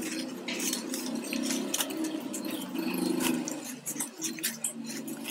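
Plastic craft wire strands handled and pulled into a knot by hand: many small sharp ticks and clicks of plastic rubbing and snapping against plastic, over a low steady hum.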